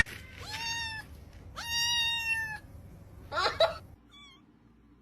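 A cat meowing: two drawn-out meows, the second about a second long, then a shorter call that wavers in pitch and a faint short one.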